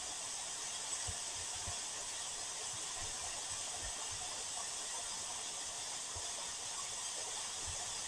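Steady hiss of a waterfall's falling water, with a few faint low bumps.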